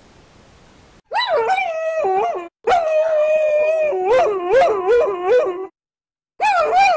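Dog-like howling. After about a second of quiet come two long howls, the second wavering up and down in pitch, and a third begins near the end.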